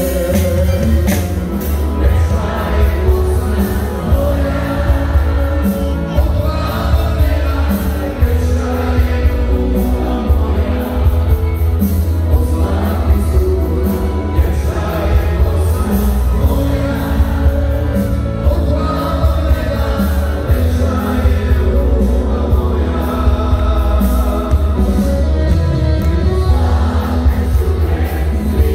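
Live band playing loud amplified pop-folk music with a male singer, over heavy bass and a steady beat.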